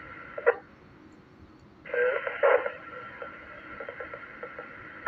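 Amateur radio transceiver audio: a squelch tail bursts and cuts the hiss about half a second in. About a second later a station keys up with a short, garbled burst of transmission, and its carrier hiss runs on until another squelch burst at the very end.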